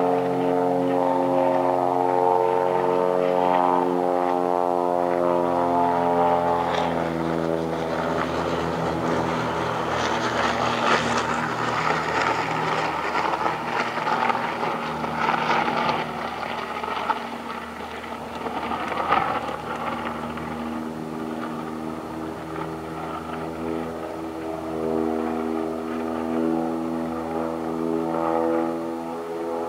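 A steady engine-like drone holding one pitch. About a quarter of the way in it gives way to a rough, noisy stretch with scattered clicks, and the drone comes back near the end.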